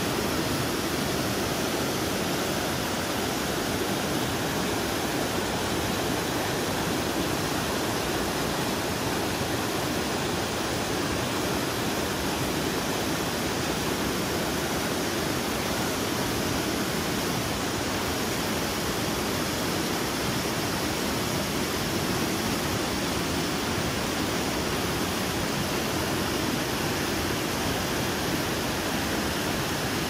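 River rapids rushing over rocks: a steady, unbroken sound of white water.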